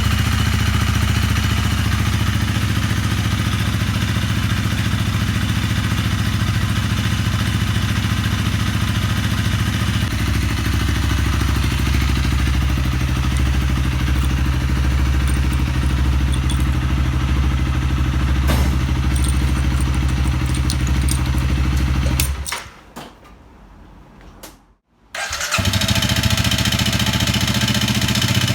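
Honda CRF250L's single-cylinder engine idling steadily after its rebuild for a broken piston ring, its note shifting slightly about ten seconds in. Near the end it drops out for about three seconds, then an engine runs again, likely the before-repair recording, when a broken piston ring was making the noise.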